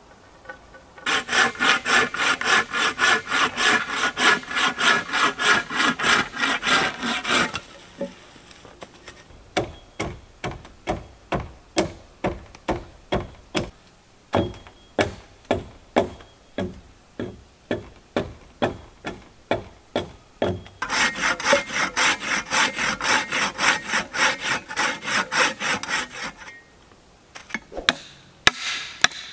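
Hand saw cutting through wood in fast, even strokes, about four a second. In the middle it slows to a longer run of lighter strokes, then speeds up again, with a few wooden knocks near the end.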